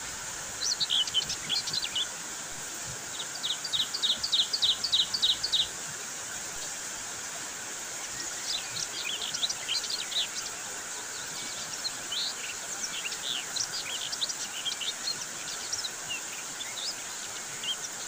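Steady rain falling on a mango tree's leaves, a constant even hiss. Over it, small birds call in quick high chirps: a short flurry about a second in, an evenly spaced run of about eight chirps a few seconds later, then scattered chirps through the second half.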